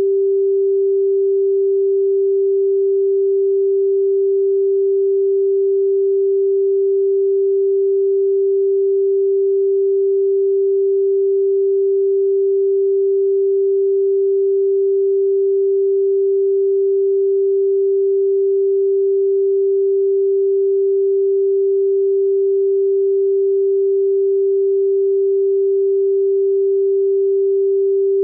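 A steady pure sine tone at 392 Hz, the pitch G4, holding one unchanging pitch and level throughout.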